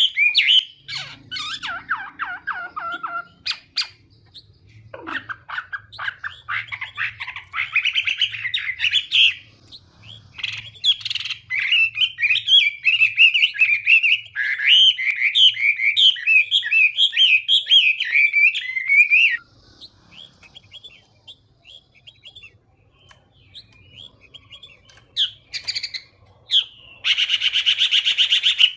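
Chinese hwamei singing: rapid, varied warbled phrases, including one long unbroken run of about fourteen seconds. A pause with scattered notes follows, then a harsh, buzzy rattle of fast repeated notes near the end.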